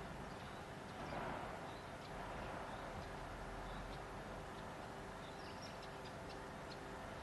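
Outdoor ambience: a steady low hum and background noise, with faint, scattered bird chirps.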